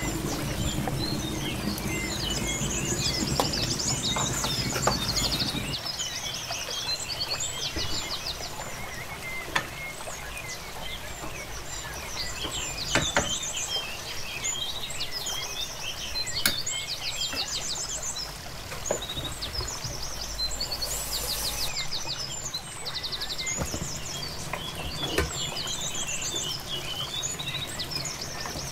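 Birds singing and chirping in repeated short trills, over a low hum that stops about six seconds in. A few sharp knocks of a wooden spoon against an aluminium cooking pot.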